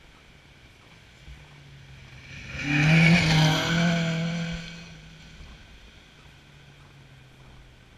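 Rally car passing at speed on a gravel forest stage: its engine note builds from about a second in, is loudest as the car goes past with the hiss of tyres on gravel, then fades as it drives away.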